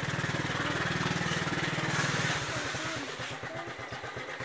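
A small motorcycle's engine running under way, then dropping to a slower idle about two seconds in as the bike slows to a stop.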